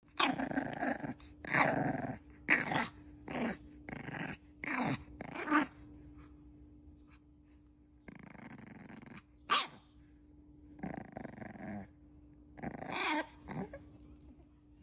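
Bulldog puppy growling and yipping: a string of short little growls, most of them in the first six seconds and a few more later on, with a faint steady hum underneath.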